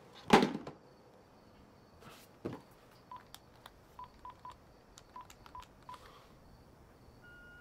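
Phone keypad beeping as a number is dialed: seven short beeps at one pitch, spread over about three seconds, starting about three seconds in. A short, louder sound comes right at the start.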